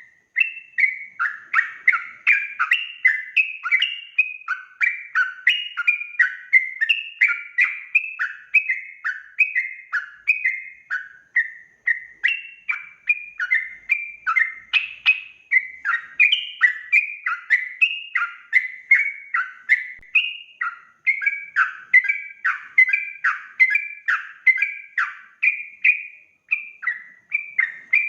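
Yellow-vented bulbul (trucuk) singing a fast, non-stop string of short whistled phrases, about two to three a second, used as a luring song.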